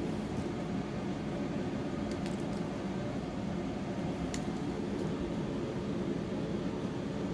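Steady low background hum, with faint soft handling noise of fingers and a metal tool working sculpting clay on a wire armature, and a few small clicks around two and four seconds in.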